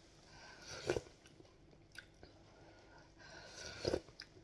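Spoonfuls of noodle soup being slurped, twice: once about a second in and again near the end, with soft chewing between.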